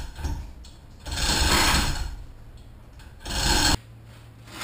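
Wooden crate base and pallet boards scraping and dragging over a concrete floor in short pulls of about a second each, with pauses between and one pull stopping abruptly.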